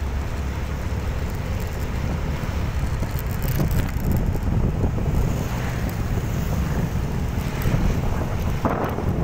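Wind buffeting the microphone while riding a motorcycle, with the motorcycle's engine running underneath as a steady low rumble.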